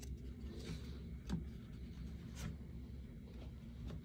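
Trading cards being handled and set down on a wooden desk, giving a couple of faint soft clicks over a low steady room hum.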